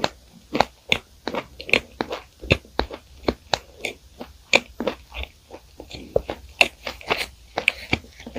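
Close-miked chewing of a flaky croissant: a run of sharp, irregular crunches, two or three a second.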